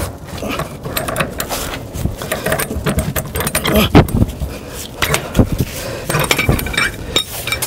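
Hammer blows on a gimbal bearing installer tool, driving a sealed gimbal bearing into a MerCruiser Bravo III gimbal housing: an irregular run of sharp knocks, several a second, the loudest about four seconds in. The blows land with the bearing bottoming against the inside of the gimbal housing, the thud that shows it is fully seated.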